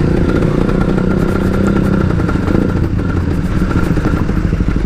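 Two-stroke motorcycle engine running at low revs with a rapid, even pulsing exhaust note while the bike creeps along.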